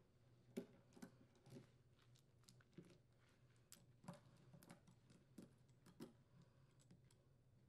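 Faint, scattered clicks and light rattles of a steel saw chain being handled and fitted around a chain bar, the links clinking against each other and the bar.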